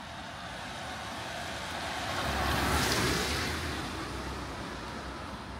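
A car passing on a wet street, its tyre hiss swelling to a peak about three seconds in and fading away, over steady background traffic noise.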